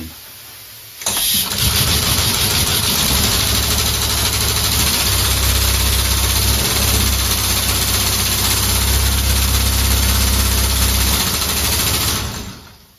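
Home-built compressed-air engine running on shop air, unloaded: a loud, steady hiss of exhausting air over a fast low rumble from the cycling pneumatic cylinders. It starts about a second in and dies away about a second before the end as the air is shut off.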